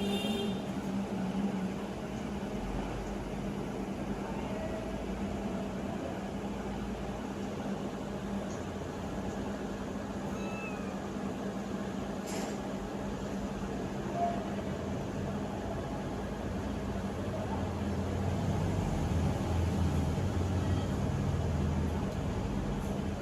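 Newborn kittens giving a few faint, short mews over a steady low background hum that grows louder near the end.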